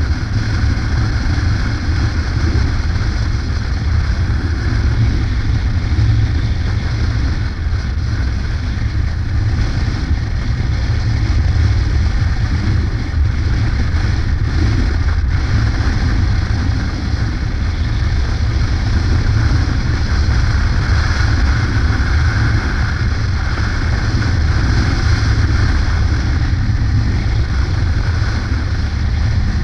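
Yamaha Ténéré adventure motorcycle cruising at a steady speed, its engine running under a steady rush of wind noise on the microphone.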